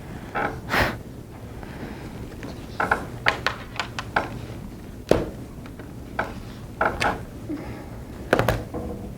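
Scattered light knocks and thuds, some in short quick clusters, of things being handled and set down, as when someone gathers their belongings to leave.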